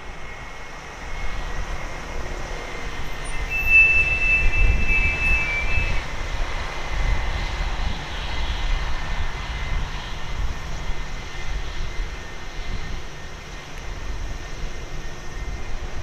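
Jet airliner engines rumbling low and steadily, with a brief high whine from about three and a half to six seconds in.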